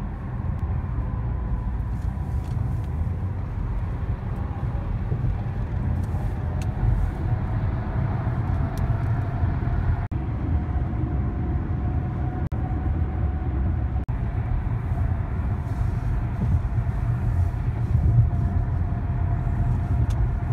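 Steady low rumble of road and engine noise inside a car driving at highway speed, with a faint steady whine above it.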